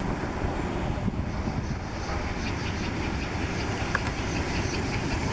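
Steam tank locomotive 78 468 approaching with its coaches: a steady rumble, with a rapid regular beat building from about halfway in.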